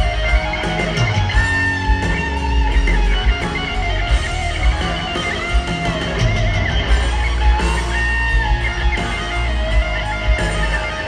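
Heavy metal band playing live: an electric guitar lead holds long, bending high notes over distorted rhythm guitar, bass and drums.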